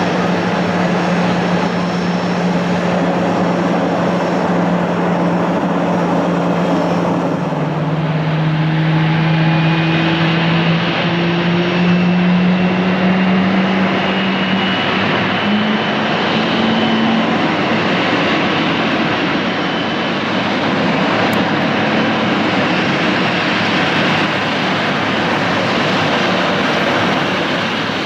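Boeing 777-300ER's GE90 jet engines running close by: a steady loud rush with a low hum, and thin whining tones that climb slowly in pitch through the middle.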